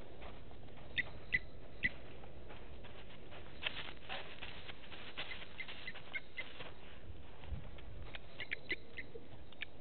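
Short, scattered bird chirps in small clusters, a few about a second in, more in the middle and a quick run near the end, over steady outdoor background noise.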